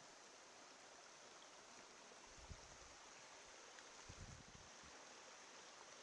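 Faint, steady rush of a mountain stream, with two soft low thumps about two and a half and four seconds in.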